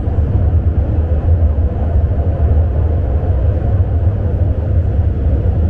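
Metro train running between stations, heard from inside the car: a steady, loud low rumble of wheels and traction with a fainter rushing noise above it.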